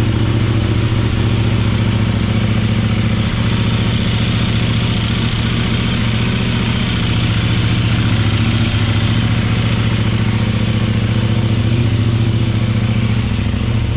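2023 KTM 890 Adventure R's parallel-twin engine idling steadily through a Wings aftermarket silencer, just after a cold start. The engine has caught and stays running: the owner's workaround of waiting for the fuel-pump noise and click, then counting five before pressing start, has avoided the known start-then-die cold-start fault.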